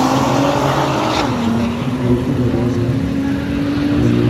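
Drag-racing cars' engines running hard as they accelerate away down the strip; the engine pitch drops a step about a second in.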